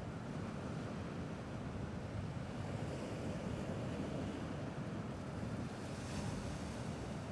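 Gentle sea waves washing steadily, with a low rush of wind on the microphone.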